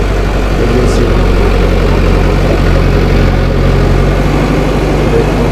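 Diesel engine of a JCB backhoe loader running steadily as it loads soil.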